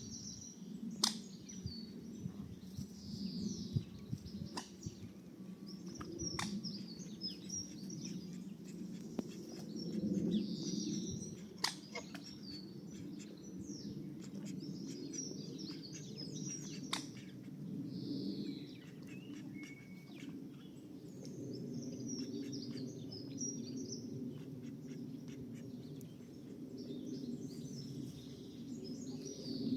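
Small birds chirping and calling in short, high, scattered notes over a steady low background rumble, with a few sharp clicks.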